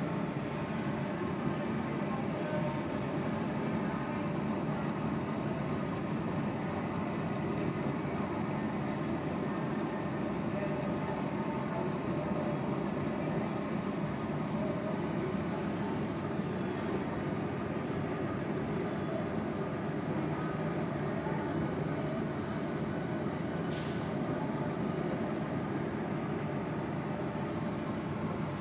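Steady low background noise, even throughout, with no distinct events.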